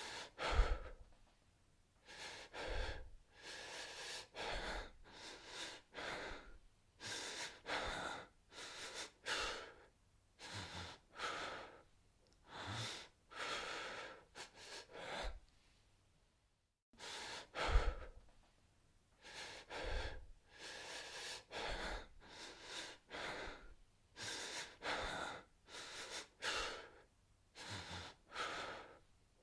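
A terrified man breathing hard in quick, uneven breaths, a little over one a second. A loud gasp opens the run. After a brief pause past halfway, another loud gasp starts the same run again.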